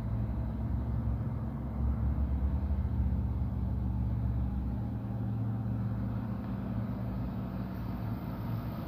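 Diesel truck engines pulling up a hill road, a steady low drone with a heavier low throb from about one and a half to five seconds in.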